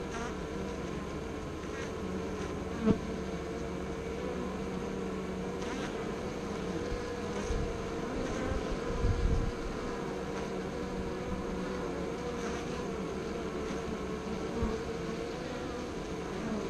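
Honeybees buzzing at a hive entrance close to the microphone, a steady wavering hum. A sharp knock sounds about three seconds in, and low rumbling bumps come around the middle.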